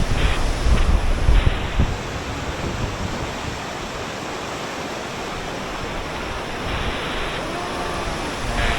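Tumpak Sewu waterfall rushing in a steady, loud wash of water noise, with wind buffeting the microphone in the first two seconds.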